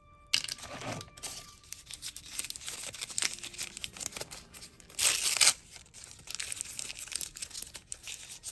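Toy packaging being torn open and crinkled, a dense run of crackling and rustling with one louder tear about five seconds in.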